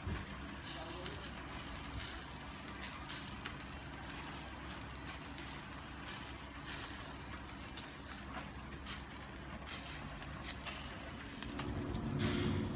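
A motor humming steadily, with scattered sharp crackles from the charcoal fire. The hum grows louder and fuller near the end.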